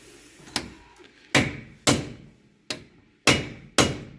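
Hammer blows on the bolts of a Land Rover Discovery 2's front hub, driving the stuck hub off the axle. Six sharp metal-on-metal strikes come at uneven intervals of about half a second to a second, each ringing briefly.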